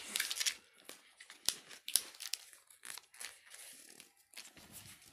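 Thin foil or plastic wrapping on a small chocolate treat's plastic cup crinkling and tearing as it is peeled open by hand: irregular rustling with sharp crackles, busiest in the first second or so and more scattered later.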